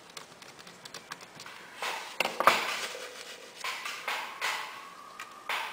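Light clicks and clatter of a small screwdriver and metal parts being handled on an open laptop's motherboard as the heatsink screws are tightened back down, with a sharper clack about two and a half seconds in.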